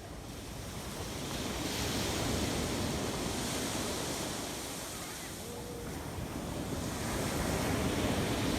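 Ocean surf washing up a sandy beach, in two swells: one building to a peak about two seconds in and easing off, then another rising near the end.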